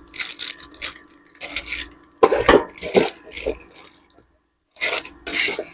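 Cracked tablet LCD panel being handled and set down: crackling, rustling handling noise with small clicks, in three short bouts separated by pauses.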